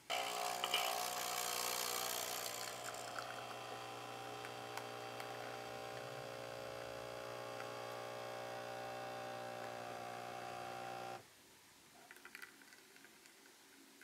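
Nespresso Essenza Mini capsule machine brewing: its pump buzzes steadily, with extra hiss over the first two seconds or so. It cuts off suddenly about eleven seconds in, followed by a few faint drips of coffee into the glass jug.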